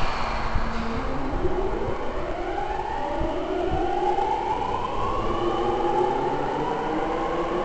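Rinkai Line 70-000 series electric train pulling away, its VVVF inverter motor drive whining in several tones that climb together in pitch from about a second in and level off near the end, over the low rumble of the train.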